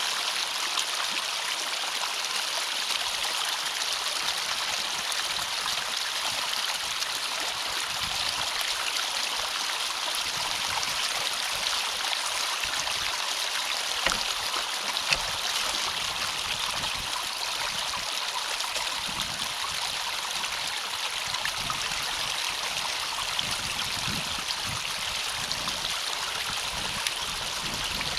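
Steady rush of water flowing through a drainage ditch culvert where a beaver dam is being cleared, with two brief sharp clicks near the middle.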